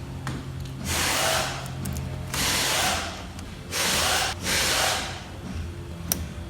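Cordless power driver running in four short bursts, tightening 10 mm bolts, over steady background music.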